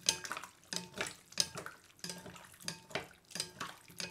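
Wooden spatula stirring sliced potatoes in a liquid dressing in a glass bowl. It makes irregular wet sloshing and knocks and scrapes against the glass, a few each second.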